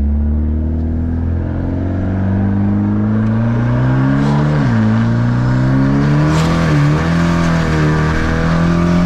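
Mitsubishi Lancer Evolution X's turbocharged 4B11 four-cylinder heard from inside the cabin under acceleration. The engine pitch climbs and drops sharply at two upshifts, about 4.5 and 7 seconds in, then climbs again.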